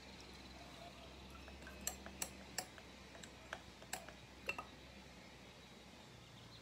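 Faint, scattered sharp clicks and taps, about half a dozen over a couple of seconds, as the metal coolant pipe is worked free of a motorcycle's water pump. A faint low hum sits underneath.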